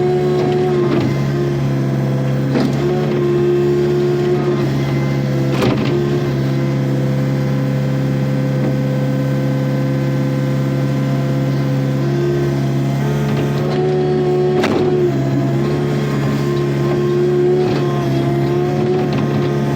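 Takeuchi TB145 compact excavator's diesel engine running steadily under hydraulic load, its pitch shifting slightly as it works. A few sharp knocks of boulders being moved cut through it, the loudest about fifteen seconds in.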